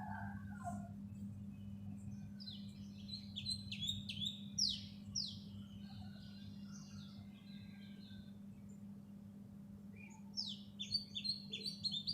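A sparrow chirping in two quick runs of high, downward-sweeping notes, one starting about two and a half seconds in and another near the end. A steady low hum runs underneath.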